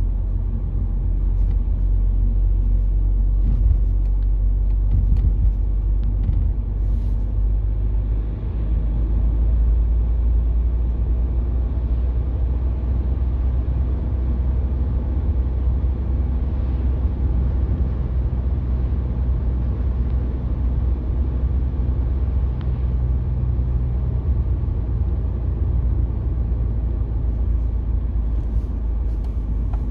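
Car driving at steady speed, heard from inside the cabin: a steady low rumble of engine and road noise.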